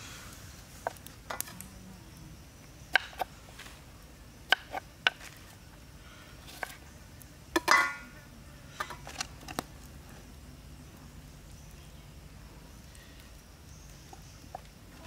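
Steel cleaver knocking and scraping on a wooden chopping board: a dozen or so short, scattered taps and clacks, the loudest about eight seconds in with a brief metallic ring as the cleaver is set down on the board.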